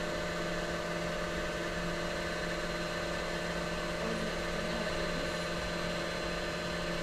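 Domestic sewing machine's electric motor running at steady high speed, winding thread onto a bobbin. The whine holds one even pitch throughout.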